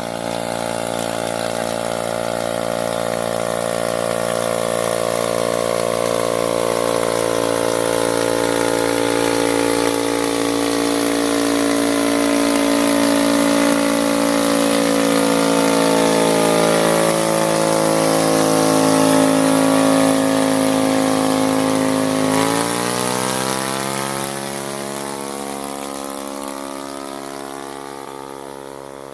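Motorcycle engine running under load while towing, its pitch sagging slowly for most of the time, then rising quickly about three-quarters of the way through as it revs up, and growing quieter near the end.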